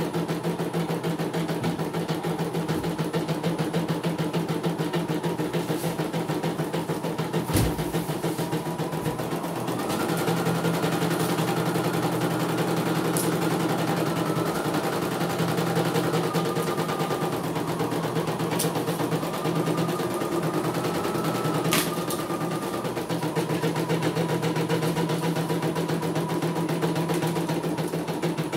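CNY E900 computerized embroidery machine stitching a design: a rapid, steady needle clatter as the embroidery unit moves the hoop. A higher whine joins about ten seconds in and stops a little after twenty seconds, and there is a sharp click before it starts.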